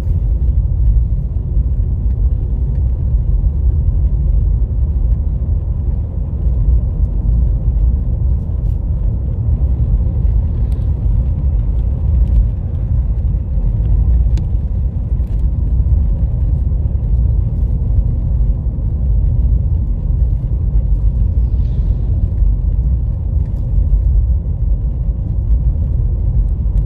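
Steady low rumble of a car driving along a road, heard from inside the cabin: tyre and engine noise at an even cruising speed.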